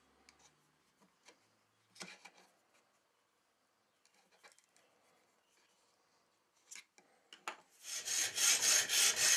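Faint scraping and clicking as a small steel screw eye is twisted into a plywood plate, then, from about eight seconds in, a hacksaw cutting round steel rod in quick, even strokes, about three a second and much louder.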